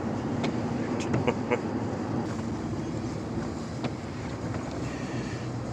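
Steady road and engine noise of a truck driving along, with a few faint ticks about a second in.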